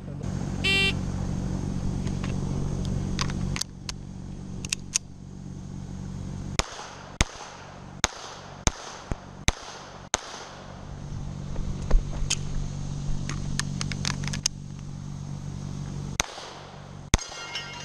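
Semi-automatic pistol firing about two dozen sharp shots in quick strings with short pauses between them, with a low steady hum underneath at times.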